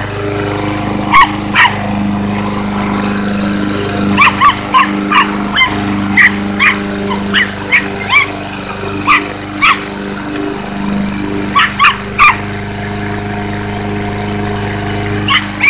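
A Chihuahua yapping in quick clusters of several short, high barks with pauses between, over the steady hum of a running lawn mower. The yaps are the loudest sounds.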